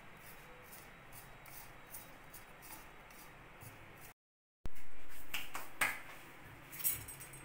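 Faint rustle of fingers mixing dry ground-biscuit powder in a ceramic bowl. About four seconds in it cuts to silence, then comes a burst of hiss that fades, followed by a few light clicks.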